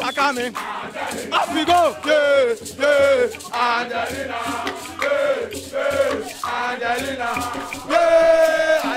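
A group of football supporters singing and chanting together, one voice standing out with long, wavering held notes.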